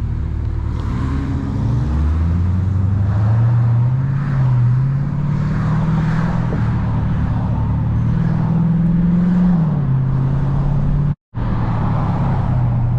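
Car engine running in traffic, its pitch rising about two seconds in as it picks up speed and dropping again near the tenth second, over steady road noise. The sound cuts out completely for a moment a little after eleven seconds, then resumes.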